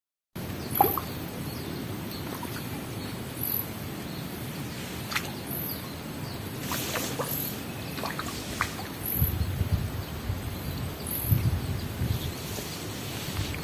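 Outdoor natural ambience: a faint high chirp repeating about every second and a quarter over a steady hiss, with scattered small clicks and some low bumps in the second half. It cuts in abruptly after a brief silence.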